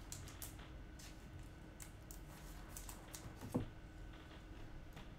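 Trading cards and their plastic holders being handled: faint, scattered sliding swishes, with one soft thump about three and a half seconds in.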